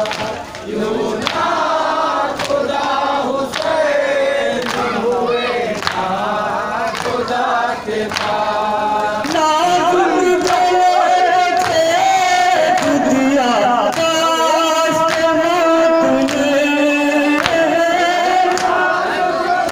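A crowd of men chanting together in unison, with sharp hand strikes on the chest keeping a steady beat. The chanting grows louder and more held about halfway through.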